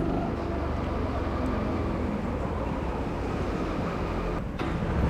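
Rental go-kart's petrol engine running at speed round an indoor track, heard from the driver's seat, with steady engine rumble and tyre and wind noise. There is a short dip in level about four and a half seconds in.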